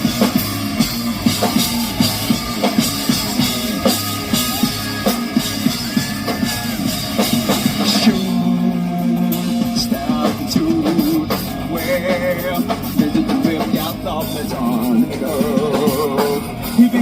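Live rock band playing loudly: drum kit and electric guitars. About halfway through, the texture changes and a wavering lead line comes to the front.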